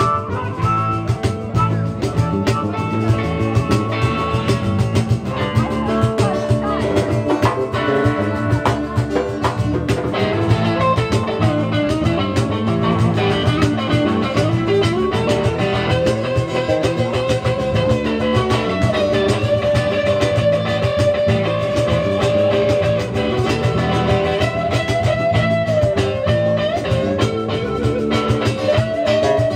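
Live blues-rock band playing guitar, drums and harmonica. From about halfway through, a lead line of long, held, wavering notes sits over the band.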